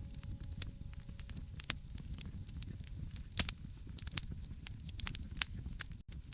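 Wood fire crackling in a fireplace: irregular sharp pops and snaps of varying strength over a low, steady rumble of burning, with a brief dropout near the end.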